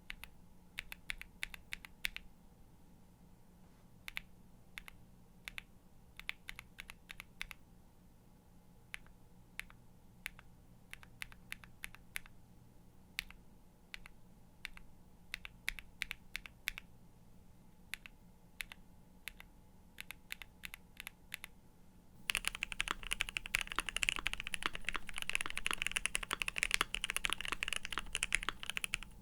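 Typing sound test on a mechanical keyboard with Gateron Mini linear switches. For the first twenty-odd seconds it is scattered single keystrokes and short runs. Then fast, continuous typing starts abruptly and runs louder to the end.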